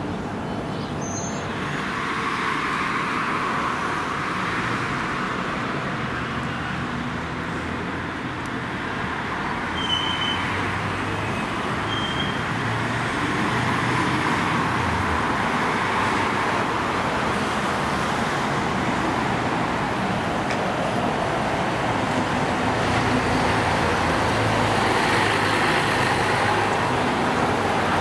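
Road traffic and city bus engines running. The steady noise rises a little about halfway through and again near the end, as a bus pulls away.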